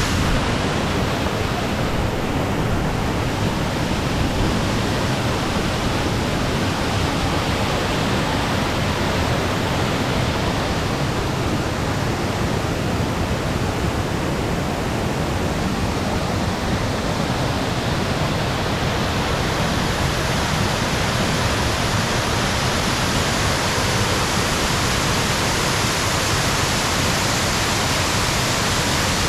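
Waterfall crashing down close by: a loud, steady rush of falling water. The high hiss grows a little stronger about two-thirds of the way through.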